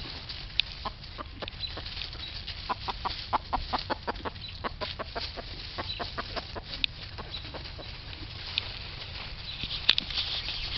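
Chickens clucking: a string of short, quick clucks, coming fastest a few seconds in.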